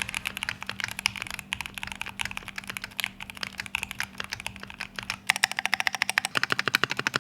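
Typing on a custom mechanical keyboard: a fast run of key clicks that becomes quicker, more even and louder about five seconds in.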